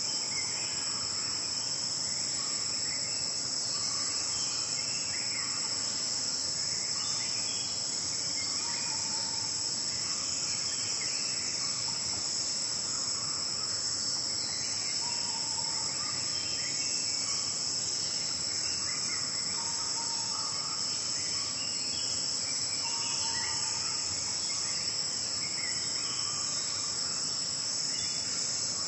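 Dense, steady insect chorus of a South Indian forest in the morning: a continuous high shrill drone with no pauses, with faint short bird calls scattered through it.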